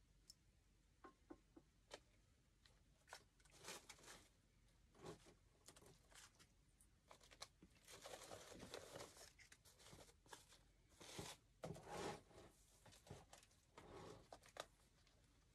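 Faint rustling and crinkling of artificial flowers and wired ribbon being handled and pushed into a wreath, in a few short spells with scattered small clicks between them.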